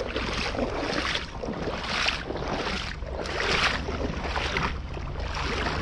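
Spinning reel being cranked to retrieve a cast lure, a soft whirring swish that swells and fades about once a second.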